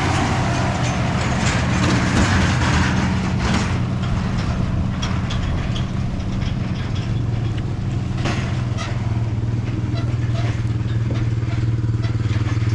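A motor vehicle's engine running steadily close by, growing a little stronger in the second half, with scattered sharp clicks and rattles.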